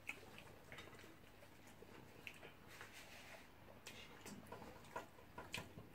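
Near silence with faint scattered clicks and rustles of people eating by hand at a table, fingers picking at food on plates and mouths chewing. The clicks come a little more often near the end.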